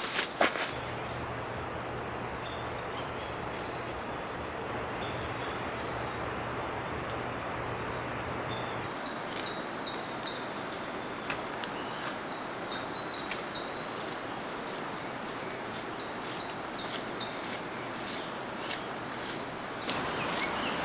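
Forest ambience: several birds sing repeated short, down-slurred phrases over a steady hiss. The hiss grows a little louder near the end.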